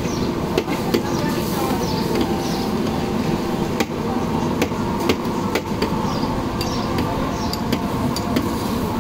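A steel ladle clinking against a large pot of paye broth in sharp, irregular knocks as bowls are filled, over a steady din of crowd chatter.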